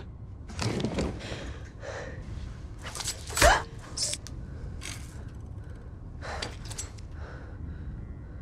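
Quick, sharp gasps and breaths of people in a struggle, a few short ones spread through, with one louder, sudden sound about three and a half seconds in.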